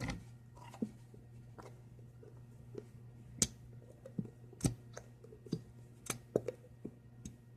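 Scattered clicks and soft knocks as a plastic bottle of Elmer's school glue is tipped and squeezed over a mixing bowl, over a low steady hum.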